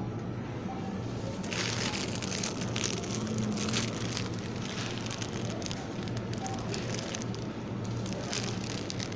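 Plastic produce packaging crinkling and crackling as bags of vegetables are handled, starting about a second and a half in, over a steady low hum.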